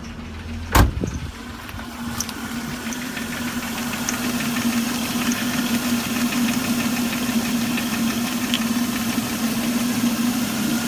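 Holden Commodore engine idling just after starting, a steady hum with one strong low tone, while its power steering reservoir is empty of fluid. A single sharp thump about a second in.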